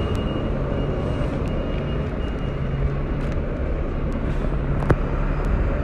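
Street noise with the steady drone of a nearby vehicle engine running, and one sharp click about five seconds in.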